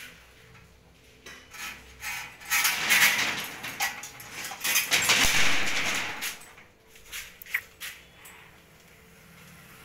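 Insulated electrical wires rustling and scraping as they are pulled and handled at a ceiling junction box, loudest in two stretches in the middle, with a few sharp clicks near the end.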